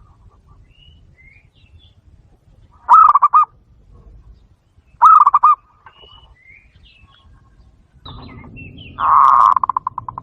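Zebra dove cooing in three bursts of rapid, stuttering coos. Two are short and about two seconds apart, and a longer one near the end trails off in quickening pulses.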